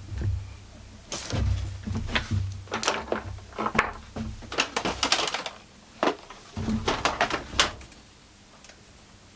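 Irregular clatter and knocking of hand tools and chainsaw parts being handled and set down on a workbench, stopping near the end.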